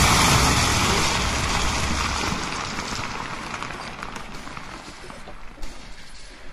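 A loud rushing noise in a battle soundtrack, fading steadily over several seconds.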